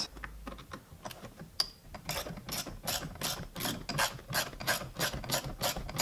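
Hand ratchet with a T30 Torx bit clicking as it backs out a steering-wheel airbag bolt. A few scattered clicks at first, then steady clicking at about four a second from about two seconds in.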